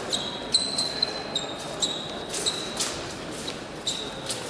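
Épée blades meeting and sliding in quick, irregular contacts: about ten sharp metallic clicks, each with a short high ring. The fencers' feet stamp on the piste in between.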